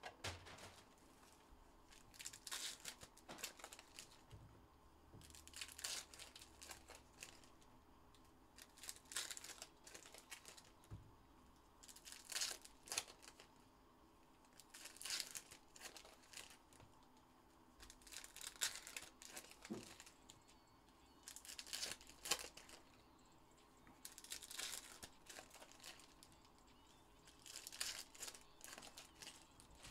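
Foil trading card pack wrappers crinkling and tearing as packs of 2021 Panini Contenders football cards are opened by hand, in short bursts about every three seconds.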